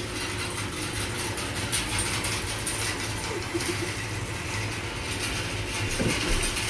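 Hay bale elevator running: a steady low motor hum with the mechanical rattle of the conveyor chain as it carries a bale up the incline.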